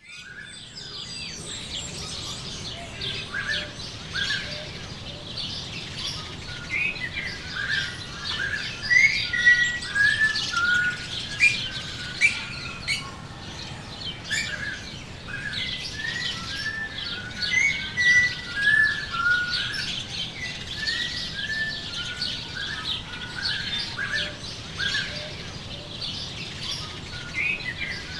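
Songbirds chirping and twittering continuously, many short calls and trills overlapping, as in an outdoor dawn-chorus ambience.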